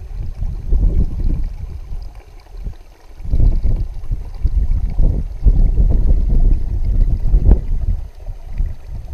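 Wind buffeting the microphone: a heavy low rumble that comes and goes in gusts, dipping briefly about three seconds in and again near the end.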